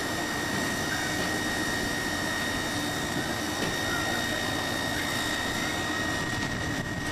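Steady running noise of a standing diesel-hauled passenger train, with a thin high whine that holds on one note.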